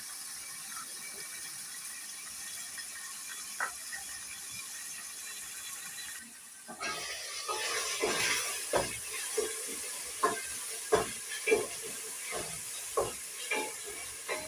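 Food hissing in a pot on the heat. After about six seconds comes a spoon knocking against a dish again and again, about two knocks a second, irregular, as something is stirred or mixed.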